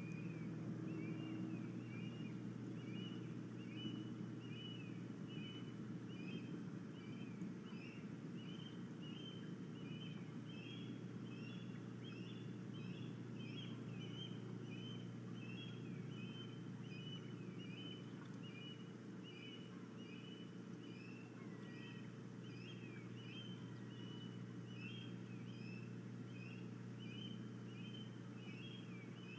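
Osprey calling: a long, even series of short, high chirps, about two a second, over a steady low hum.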